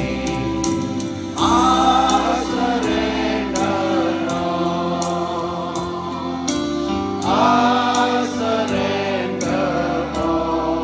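Choir singing a hymn over sustained accompaniment with a steady beat about twice a second; the voices swell louder about a second and a half in and again about seven seconds in.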